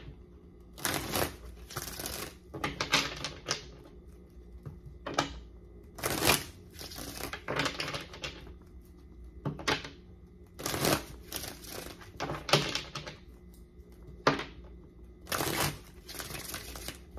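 Tarot cards being shuffled by hand: a string of short rustling bursts of card noise, one to two seconds apart.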